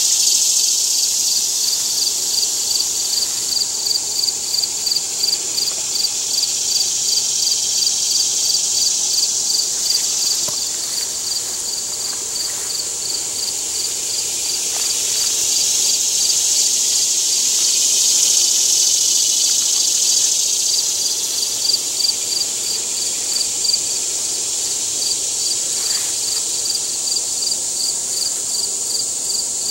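Outdoor insect chorus: a steady high buzzing that swells and fades, with an even high chirping about three times a second.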